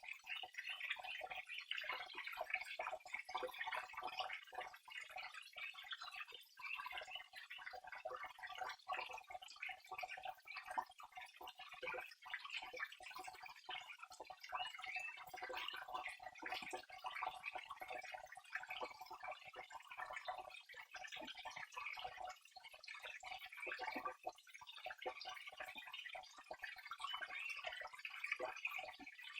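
Flowing water trickling and splashing steadily, a dense, irregular stream of small quick splashes with no pauses.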